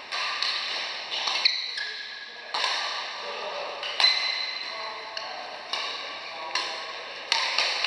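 Badminton rally: rackets striking the shuttlecock about ten times at an uneven pace, each hit a sharp crack that echoes in a large hall.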